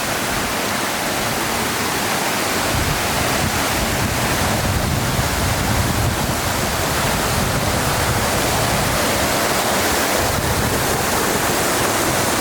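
Waterfall rushing: a steady, loud wash of falling water, with a low rumble that swells and fades beneath it.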